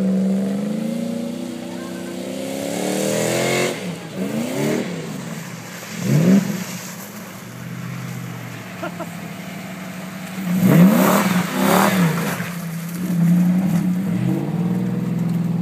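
Lifted Toyota Hilux pickup's engine revving hard with its wheels spinning in mud, the pitch climbing and dropping back several times, loudest about eleven seconds in.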